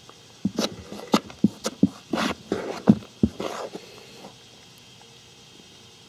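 Plastic spoon digging and scraping through loose, crumbly beetle-rearing soil in a plastic rearing case: a quick run of scrapes and light knocks for about three seconds, then it stops.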